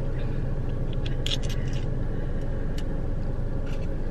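Steady low hum of a car heard from inside the cabin, with a few short crinkles and clicks just over a second in and once more near the end, as a dipping-sauce cup is handled.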